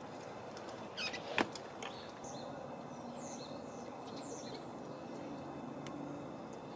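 Small birds chirping faintly, short high calls, some falling in pitch, over quiet outdoor background. A sharp click comes about a second and a half in.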